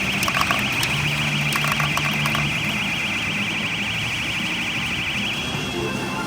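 Pachinko machine's high electronic warbling tone, alarm-like, trilling rapidly for about five seconds and then settling into a steadier tone near the end, over the constant din of the machine and hall.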